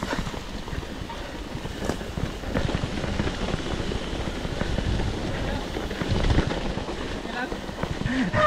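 Mountain bike clattering and rattling over a rocky trail, with irregular knocks throughout over a steady low rumble.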